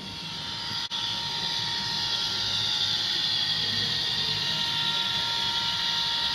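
OO gauge model train, a 201 Class diesel locomotive with its coaches, running along the layout track: a steady whine with a high hiss, louder after a brief dropout about a second in.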